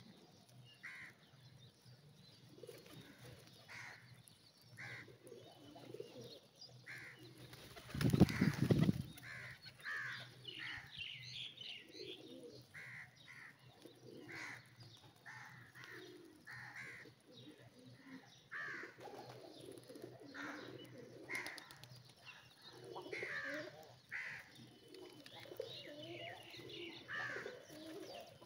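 A flock of feral rock pigeons cooing, with short higher chirps repeating about once a second. A loud burst of noise about eight seconds in.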